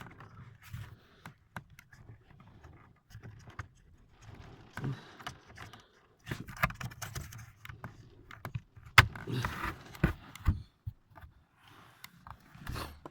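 Hands working inside a BMW E90's centre console: scattered plastic knocks, clicks and rubbing as the AUX port housing is pushed back into place. The sharpest click comes about nine seconds in.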